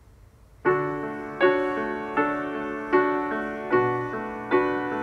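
Background piano music that starts just under a second in, with chords struck at an even, unhurried pace.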